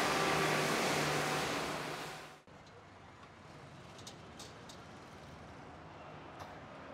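Road traffic with vehicles driving, loud for about two seconds and then fading before cutting off abruptly. Quieter background ambience follows, with a few faint clicks.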